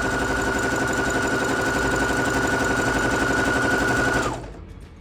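Singer Heavy Duty 6805C sewing machine stitching a decorative festoon (scallop) stitch: a rapid needle clatter over a steady high motor whine. It stops about four seconds in, when the stitch run is finished.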